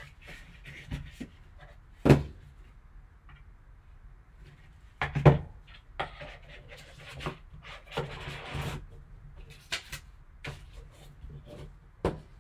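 Gloved hands handling a cardboard trading-card box and its foam insert: rustling and scraping of cardboard and foam, with several sharp knocks and bumps as the box is moved, the loudest about two and five seconds in.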